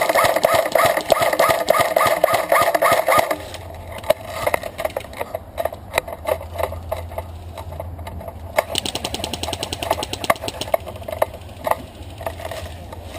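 Airsoft guns firing: a loud, fast mechanical rattle of electric-gun bursts for the first three seconds or so, then fainter bursts and scattered sharp clicks, with another rapid burst about nine seconds in.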